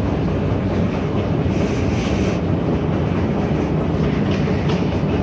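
Steady low rumble and hum of an airport terminal concourse, with no distinct events.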